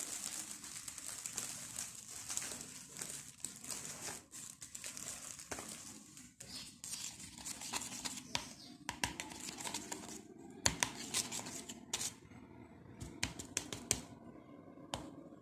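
A plastic bag crinkling, then a spoon stirring a thick printing paste in a plastic bowl, with a run of short clicks in the second half. The paste is too thick to mix easily.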